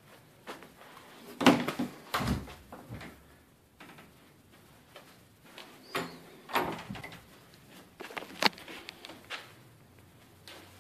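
Wooden closet doors being handled and pushed shut: three bursts of knocks and latch clicks, the loudest about a second and a half in.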